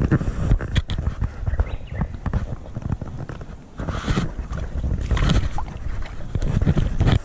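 Wind buffeting the microphone as a rough, uneven rumble, with irregular rustles and knocks from handling and movement, and two brief brighter rustles about four and five seconds in.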